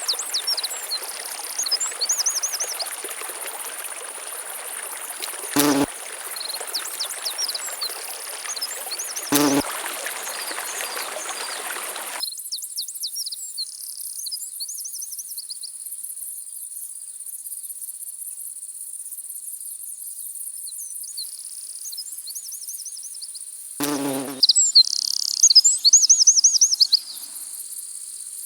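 Insects trill in a steady high-pitched drone while birds give repeated chirping calls. A rushing-water hiss sits under them and stops suddenly about twelve seconds in. Three short, low calls break in, two in the first ten seconds and one near the end.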